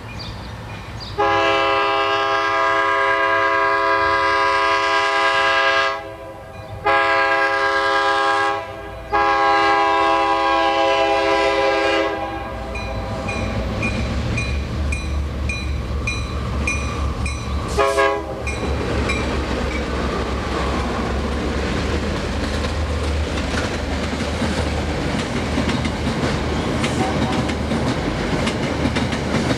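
Diesel locomotive's multi-chime air horn sounding three long blasts, then one brief blast a few seconds later, as the train passes by. The rumble and clickety-clack of the train rolling past fill the rest.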